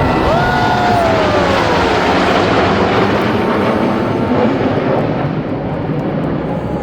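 Loud engine noise of aircraft flying low overhead, with a whine that falls in pitch in the first couple of seconds as they pass.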